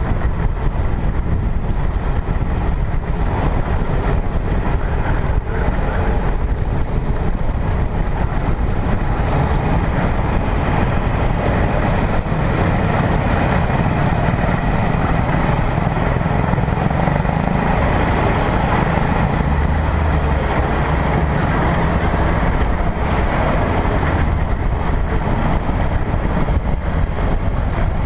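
Steady low rumble of a car driving slowly, its engine and road noise heard from on the car itself.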